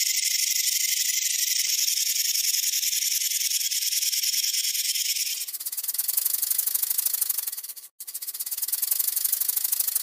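Rattlesnake buzzing its tail rattle. First comes a steady high buzz, then about five seconds in a coarser, fuller rattle of very fast ticks, which cuts out for a moment near eight seconds and starts again.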